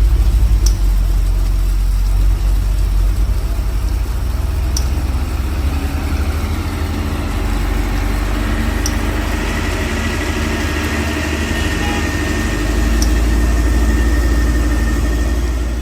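Heavy diesel truck engine running under load on a steep climb, a deep steady rumble with a faint whine that comes up about halfway through.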